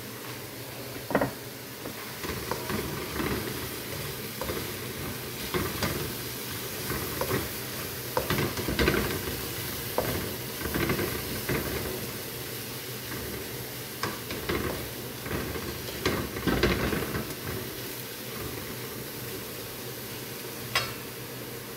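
Ground chicken and diced carrots frying in a nonstick pan with a steady sizzle, while a spatula stirs and scrapes against the pan in irregular strokes. There is a sharp tap about a second in and another near the end.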